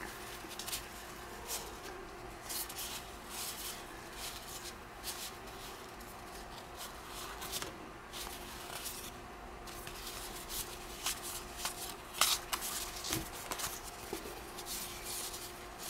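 Baseball trading cards handled by hand: stiff cardboard cards sliding and flicking past one another as a stack is sorted, a string of soft, irregular rustles and clicks, with a sharper click about twelve seconds in.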